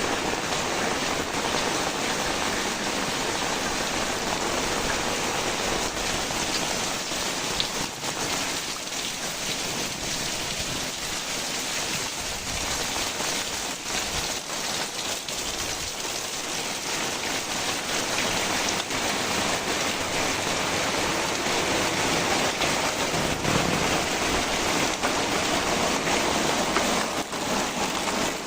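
Heavy rain falling steadily, a little lighter in the middle and heavier again near the end.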